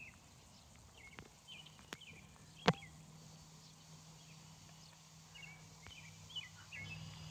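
Birds chirping in short scattered calls, with a low steady hum coming in about a second and a half in and a single sharp click just under three seconds in.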